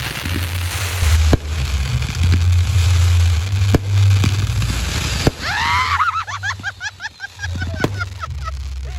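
Professional fireworks shells going off: a heavy low rumble of booms with several sharp bangs spread through, and a run of short rising-and-falling whistling tones from about halfway on.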